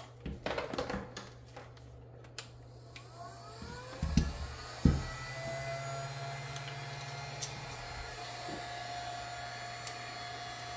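Handling clicks and knocks, then the Black & Decker heat gun is switched on about three seconds in. Its fan motor whine rises to speed over a couple of seconds, then runs steadily with a rush of air.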